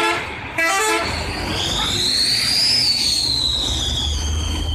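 A Mira bus's multi-tone telolet horn plays a last two short bursts of notes. Then the bus's engine runs with a low rumble and a high whine that rises and then slowly falls.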